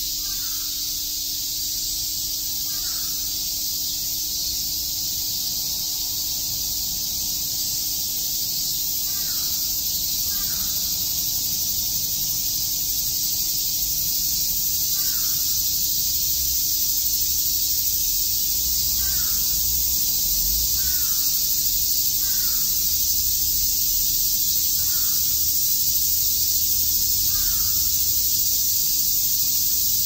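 A chorus of cicadas sizzling steadily in the summer trees, slowly growing a little louder. A bird gives a short call about a dozen times, every second or few seconds.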